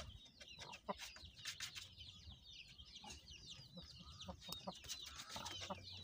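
Chickens clucking faintly, with many short, high-pitched calls scattered throughout.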